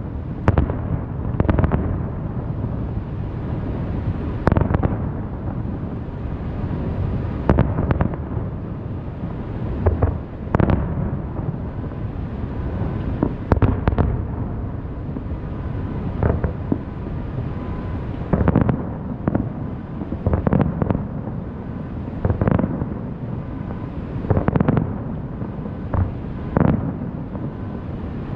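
Aerial fireworks display: shell after shell bursting, a boom every second or two, over a steady low rumble of continuing explosions and their echoes.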